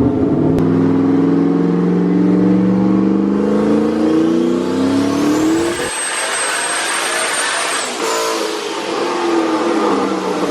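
Turbocharged Mustang engine revving up under full load on a chassis dyno, its pitch climbing steadily for about six seconds. It then lets off: the engine note drops away under a hiss and a high whistle, and the revs fall as it winds down near the end.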